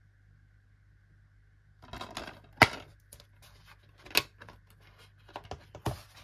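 Plastic DVD case being handled and snapped open, with a sharp click about two and a half seconds in. Another click comes as the centre hub is pressed to release the disc, then several lighter plastic clicks as the disc is lifted off the hub.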